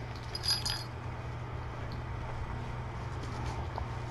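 A brief metallic clink or jingle with a short ringing note, about half a second in, over a steady low hum, with a few faint clicks later on.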